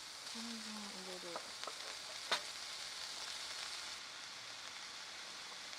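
Food sizzling in a frying pan, with a few clicks of a utensil against the pan and one sharper knock a little over two seconds in.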